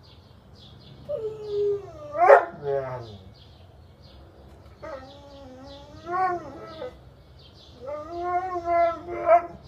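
A dog vocalizing in three drawn-out whining howls, the pitch rising and falling within each like talking, the loudest about two seconds in. It is a frustrated, complaining 'I can't get it' at a skateboard it cannot reach.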